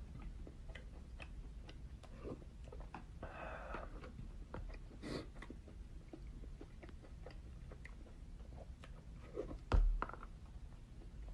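A person chewing food close to the microphone: a run of small irregular mouth clicks and smacks. There is a short voice-like sound a little over three seconds in and a louder thump near the end.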